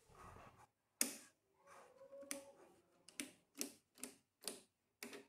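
Fingers tapping lightly on the plastic cover of a household electrical panel: about seven faint clicks, irregularly spaced, coming quicker in the second half.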